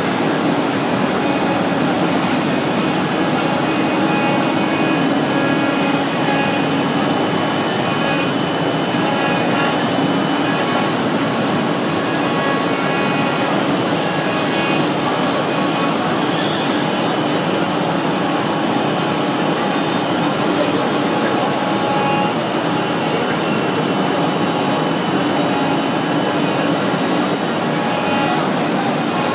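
Multi-head 4-axis CNC wood router running steadily: spindles spinning at speed, giving a dense, even machine noise with a few steady high tones over it.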